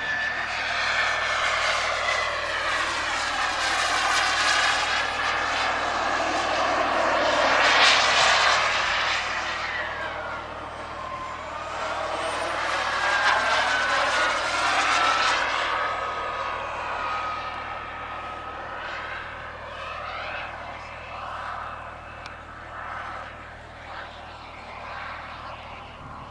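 Jetsmunt TS-166 turbine of a Feibo Viper Jet RC model jet flying past: a steady turbine roar with a high whine that drops in pitch as it goes by. It is loudest about eight seconds in and again around thirteen to fifteen seconds, then fades as the jet draws away.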